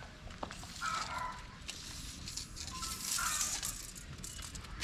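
Faint farmyard background: chickens clucking and small birds chirping in short scattered calls, with a brief rustle about three seconds in.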